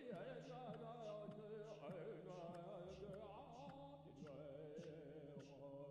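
Faint background music: a melody that bends up and down in pitch over a steady low drone, with light ticks of percussion about three times a second.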